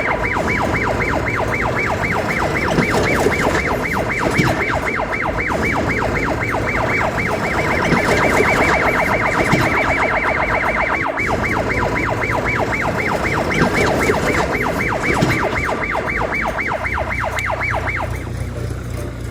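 Electronic siren in a fast warbling yelp, about five cycles a second, over a steady rumbling vehicle noise; the siren cuts off near the end.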